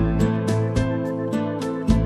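Instrumental background music: plucked guitar over sustained notes, with a steady beat.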